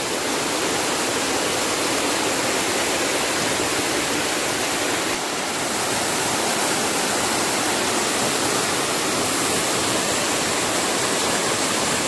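Steady rush of falling water from a waterfall, an even, unbroken wash of noise.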